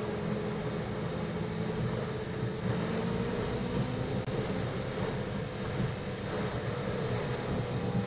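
Car driving at about 60 km/h, heard from inside the cabin: steady engine and tyre noise with a hum that rises slightly as the car speeds up and eases off again near the end.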